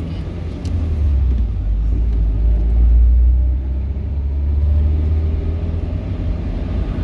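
Steady low rumble of a car engine and tyres on the road, heard from inside the moving car's cabin.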